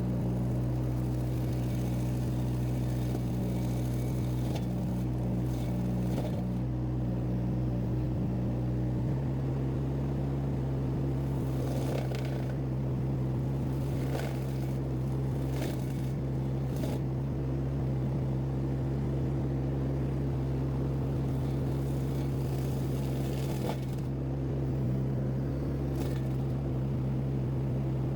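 Mini skid steer loader's Yanmar three-cylinder diesel engine running steadily under load while its forestry mulcher attachment cuts grass. The engine note changes about nine seconds in, and scattered short cracks sound over it.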